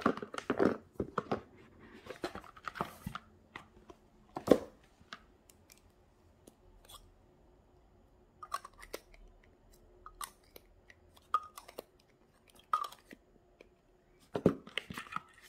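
Cardboard box and packaging of a pen-style electric nail drill being opened and handled: rustling and sliding of the box, with scattered clicks and taps as the plastic drill body and its parts are taken out. The loudest moments are a flurry of rustles at the start, a sharp tap about four and a half seconds in, and another cluster near the end.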